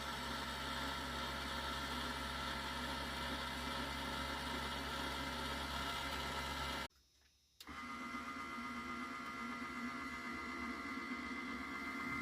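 12 V DC satellite linear actuator's geared motor running steadily with a whine. It cuts out suddenly about seven seconds in for under a second, then runs again at a slightly different pitch, as when the actuator stops and reverses to raise or lower the drill press.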